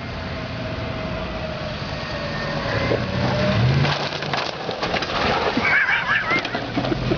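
Jeep engine running, its pitch rising about halfway through as it revs. A run of clicks and cracks follows in the second half.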